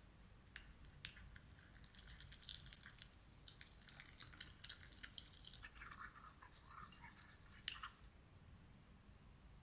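Sourdough starter being stirred during a feed: faint squishy mixing and scraping, with light clicks and one sharper click near the end.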